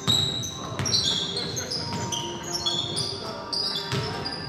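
Basketball game play on an indoor court: a ball bouncing, with a few sharp thuds, and many short, high-pitched sneaker squeaks as players cut and stop.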